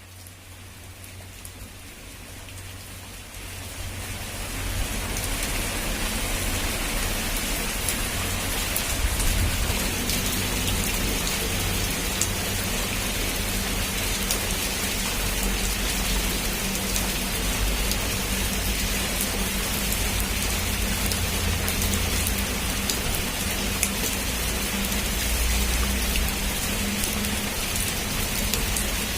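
Heavy rain falling steadily. It fades in over the first few seconds to a constant hiss of rain, with a low rumble underneath and scattered ticks of single drops.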